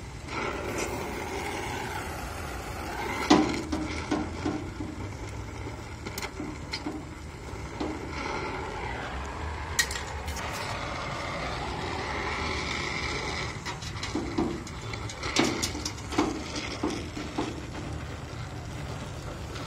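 Acetylene gas welding torch hissing steadily as it welds thin car-body sheet steel on a fender. Sharp pops and crackles from the weld puddle come in clusters about 3 s in and again from about 15 s in.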